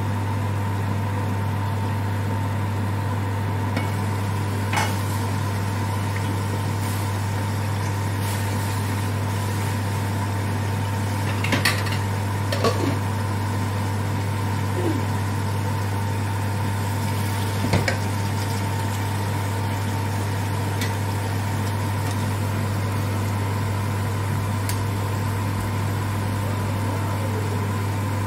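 Chicken curry simmering in a frying pan: a faint sizzle with a few short clicks and pops, under a steady low hum that is the loudest sound throughout.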